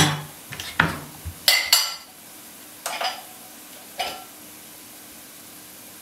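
Kitchen dishware and utensils being handled: several separate knocks and clinks over the first four seconds, the loudest a ringing clink about a second and a half in. After that only a faint steady hum.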